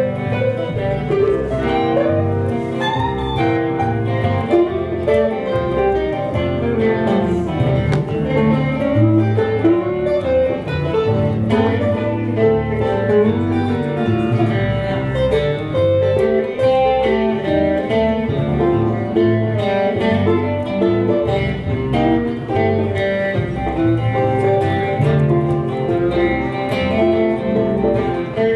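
Live band of two guitars and an electric bass guitar playing an instrumental passage, with no singing.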